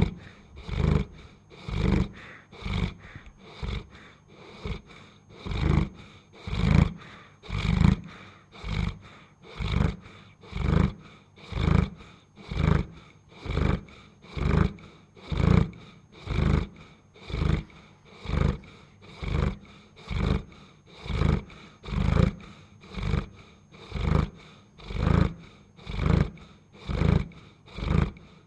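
A dog snoring in a steady, even rhythm: short deep snores about once a second.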